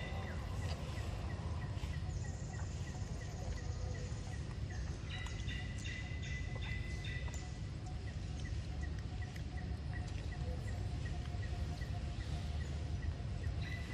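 Outdoor ambience: a steady low rumble with a bird chirping in quick series of short, repeated high notes, in bursts about five seconds in and again near the end.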